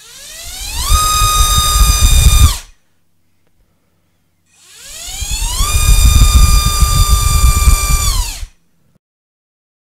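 Lumenier Skitzo 2205 2400KV ceramic-bearing brushless motor driving a DAL 5045 tri-blade propeller on a thrust stand, throttled up twice. Each run is a rising whine that levels off at a steady high pitch. The first holds for about a second and a half and then cuts off. The second holds full throttle for about two and a half seconds before winding down and stopping.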